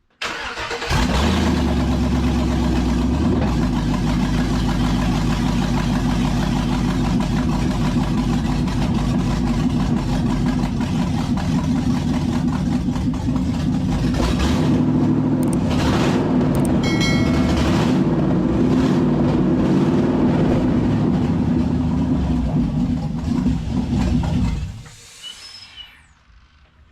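A 5.3 L LS V8 starts about a second in and runs steadily for about 23 seconds, then shuts off. This is the engine's first successful run on new fuel injectors. A whistle can still be heard, which is taken for an air leak at the intake.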